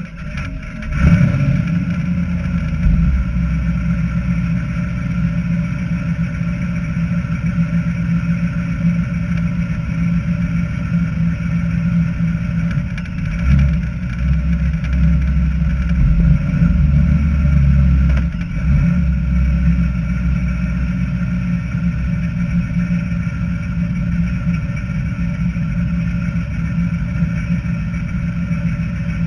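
Dodge Challenger's engine starting about a second in, then running steadily with a deep rumble. The engine gets louder and deeper a few times between about 13 and 18 seconds in.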